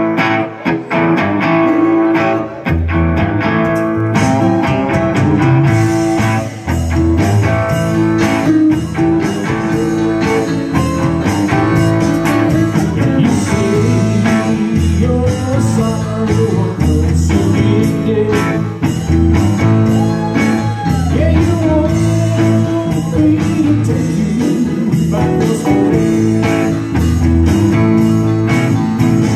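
Live blues-rock band playing: electric guitar, electric bass and drum kit. The guitar is nearly alone for the first couple of seconds, then bass and drums come in, with cymbals joining a few seconds later.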